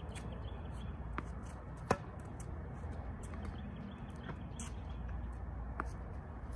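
Yonex Ezone tennis racket striking a tennis ball once, a sharp crack about two seconds in, followed later by a few fainter knocks. A steady low wind rumble sits underneath.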